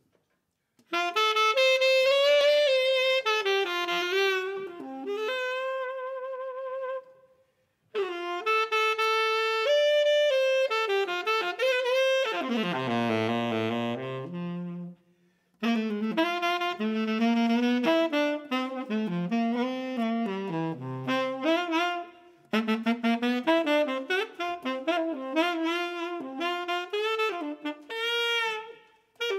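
Unaccompanied tenor saxophone improvising a jazz line in four phrases separated by short pauses, with a held, wavering note about six seconds in and a low note dropping in pitch around thirteen seconds.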